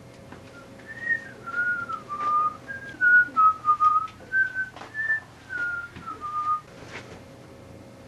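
A person whistling a short tune of about a dozen clear notes, some sliding from one pitch to the next, over a faint steady hum.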